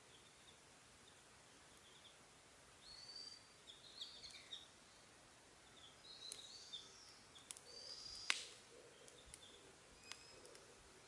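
Faint birdsong of short high chirps starting about three seconds in. A few sharp crackles from the burning wood fire come through, the loudest a little past the middle.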